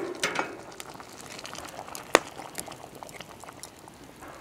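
Thick stew simmering in a cast iron Dutch oven over campfire coals, bubbling with many small irregular pops. One sharper click about two seconds in.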